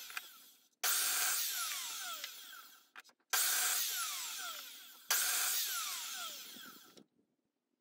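Electric mitre saw making three short cuts through timber, mitering the ends at 45 degrees. Each cut starts suddenly, runs about two seconds and fades as the blade spins down with a falling whine.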